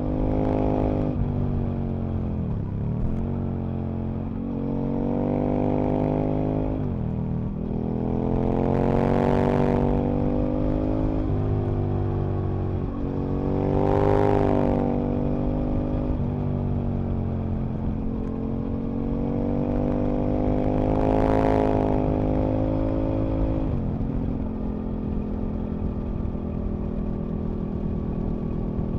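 Aprilia RSV Mille RP's 998 cc V-twin engine pulling hard uphill, its pitch climbing through the revs and dropping sharply at each gear change or throttle-off, several times over. A rushing hiss swells at the top of the stronger pulls, and near the end the engine settles to a low steady run.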